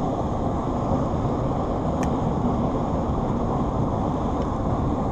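Steady low rushing noise, with a single faint click about two seconds in.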